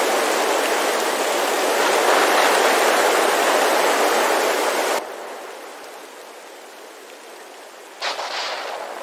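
Rain sound effect: a steady loud rushing of rain that cuts off suddenly about five seconds in, leaving a quieter hiss. The rushing comes back abruptly near the end.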